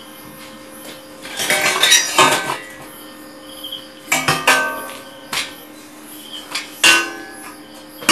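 Steel-tube chair frames clanking and rattling against one another as they are handled, in a few clusters of knocks that ring briefly, with a loud clank at the end.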